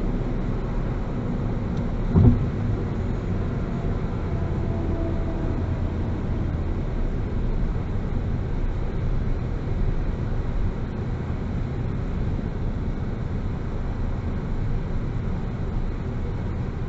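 Bone-stock 2018 Ford Focus ST cruising at highway speed, heard from inside the cabin: a steady low engine drone over tyre and road noise. A single sharp thump about two seconds in.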